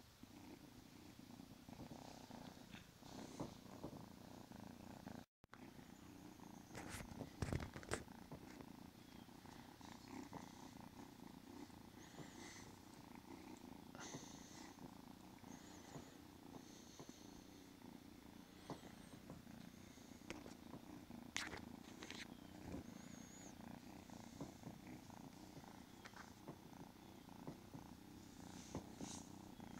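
A kitten purring steadily and faintly while it play-fights a hand, with a few sharp clicks and scuffs, the loudest a cluster about seven to eight seconds in.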